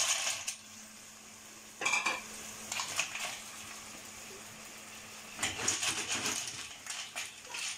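Hard-shelled clams clattering as they are tipped into a stainless steel sauté pan. Then, from about five and a half seconds in, the shells rattle against the pan as they are stirred with a wooden spatula.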